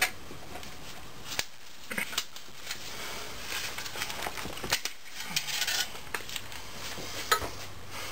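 Metal tools clinking and scraping against a snap ring inside a 4L80E transmission case as it is pried out: scattered sharp clicks, the sharpest near the end, with two short scraping stretches in the middle.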